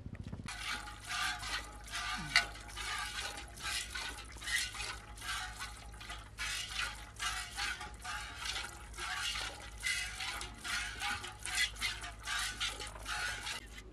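Cow being milked by hand into a metal pot: rhythmic hissing squirts of milk striking the milk already in the pot, about two squirts a second.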